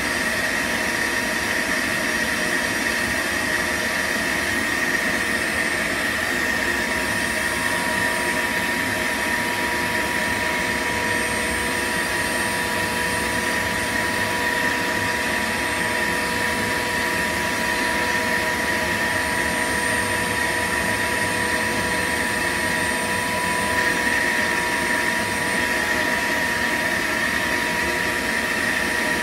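Shop vacuum running steadily with a constant whine, its wand pushed into a pile of broken rock chunks. The hose is clogged, so it picks up little.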